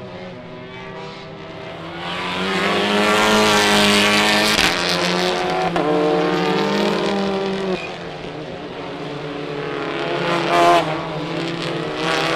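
TCR touring cars' turbocharged four-cylinder engines at racing speed as the pack passes one car after another. Their notes rise and fall with each car, loudest about three to four seconds in, with another swell near the end.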